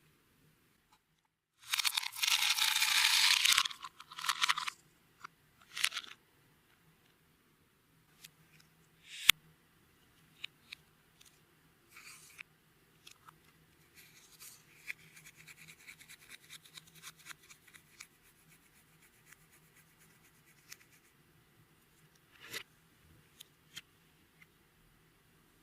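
Hands working clear slime with makeup and glitter mixed in. A loud, hissing crunch lasts about a second and a half near the start, followed by scattered sharp clicks and soft crackling.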